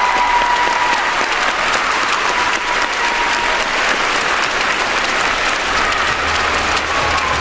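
Arena audience applauding steadily: many hands clapping for a figure skater at the end of her program.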